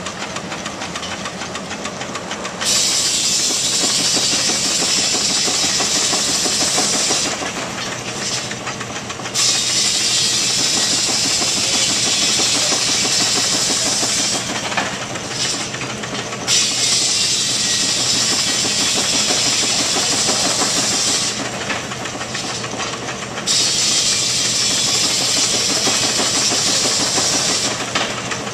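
Steam traction engine running with a steady rapid beat, overlaid by loud hissing of steam in four stretches of about five seconds each, with short breaks between them.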